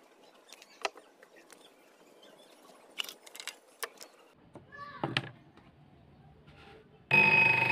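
Light clicks and knocks of wooden pieces being handled on a saw table, then about seven seconds in a homemade mini table saw driven by an angle grinder motor switches on and runs with a loud steady whine.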